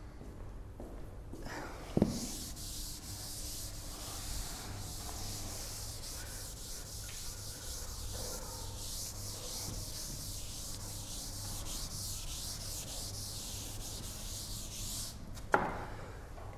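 Chalkboard eraser rubbing across a chalkboard in steady back-and-forth strokes for about twelve seconds, with a sharp knock about two seconds in and another near the end.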